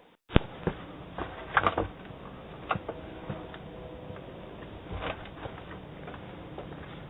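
A sharp click just after the start, then scattered lighter clicks and knocks over a steady background hiss, heard through a doorbell camera's narrow-band microphone.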